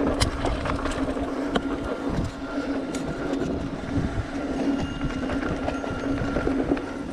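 Mountain bike rolling over a bumpy dirt track: tyre rumble and rattle, with a few sharp ticks from knocks over bumps and a steady buzzing hum underneath.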